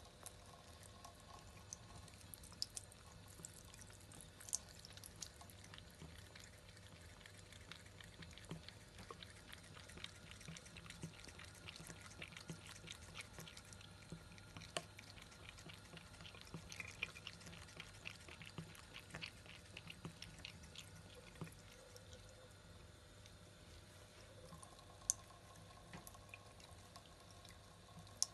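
Faint trickle of a thin stream of tap water falling into a bathroom basin, with many quick light clicks of a British Shorthair cat lapping at the stream, thickest through the middle. A couple of sharper single clicks near the end.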